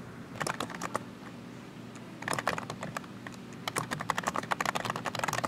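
Typing on a computer keyboard: three quick runs of key clicks with short pauses between them, the last run the longest.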